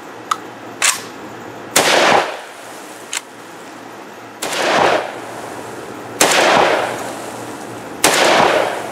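Izhmash Saiga-12 (SGL12-94) semi-automatic 12-gauge shotgun fired four times with #8 birdshot loads. The shots come about two seconds apart, and each blast trails off over about half a second.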